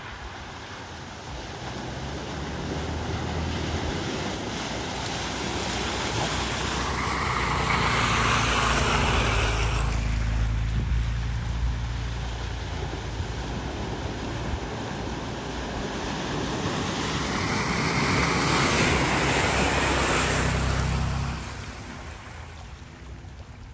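Off-road trucks, a Toyota FJ Cruiser and then a Nissan Frontier, driving one after another through a deep muddy water hole: engines running under the slosh and splash of water pushed ahead of them. The sound swells twice, about eight and about nineteen seconds in, as each truck ploughs through, then drops off near the end.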